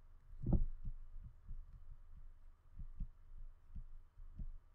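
Soft, low thuds from a stylus tapping and stroking on a tablet while handwriting, about three a second and unevenly spaced, the strongest about half a second in.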